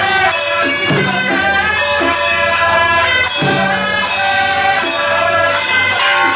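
Traditional Taiwanese temple music: suona reed horns play a wailing melody with sliding notes. Cymbals clash in a steady beat about twice a second beneath it.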